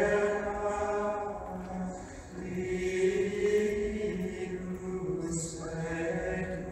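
Choral chant: voices singing long, slowly changing notes over a steady low drone.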